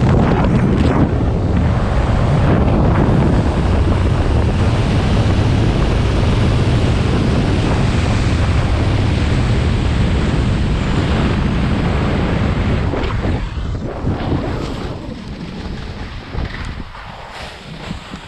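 Wind rushing over the camera microphone during a fast speedriding descent, loud and steady, then dying away over the last few seconds as the rider slows to a stop.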